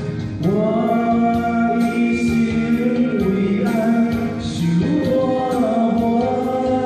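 A group of students singing a song together in unison over a backing track with a steady beat, holding long notes that slide from pitch to pitch.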